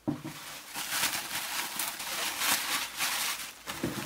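Rustling and crinkling of packing paper and bubble wrap, with cardboard scraping, as a stuffed mailing box is handled. It starts suddenly.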